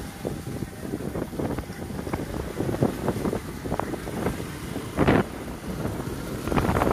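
Wind buffeting the microphone while riding a bicycle over a bumpy dirt track, with irregular knocks and rattles and a couple of louder gusts about five seconds in and near the end.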